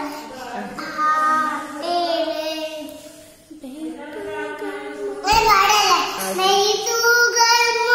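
A young boy singing a Malayalam song in drawn-out, wavering notes, with a short pause a little before the middle and louder singing in the second half.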